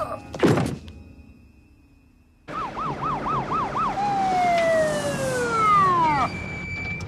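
Police car siren: after a short falling swoop and a brief near-quiet gap, it starts about two and a half seconds in with five quick yelps, then winds down in one long falling wail that dies away near the end, over a steady hiss.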